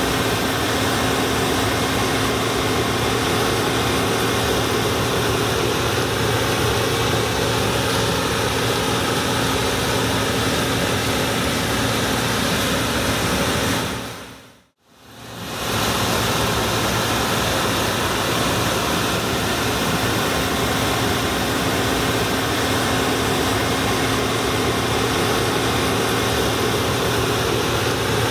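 Allis-Chalmers Gleaner F2 combine running steadily while harvesting corn, a constant engine and machinery hum. About halfway through, the sound fades out to silence for a moment and fades straight back in.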